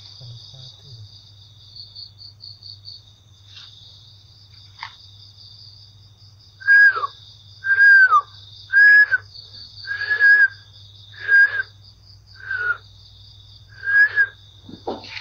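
Crickets trilling steadily. From about halfway, a series of eight loud, short, high whistle-like calls starts, about one a second, each holding its pitch and then dropping away at the end.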